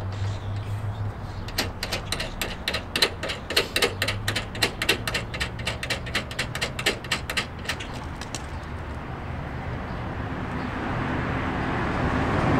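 Quick run of small clicks from hand-tool work on a hood pin bracket at the car's radiator support, about five clicks a second for some six seconds. A rushing noise swells near the end.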